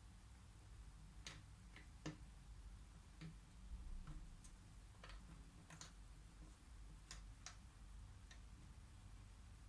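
Faint, irregular clicks and taps of cardboard jigsaw puzzle pieces being picked up and set down on a table, about ten over the stretch, with a low room hum underneath.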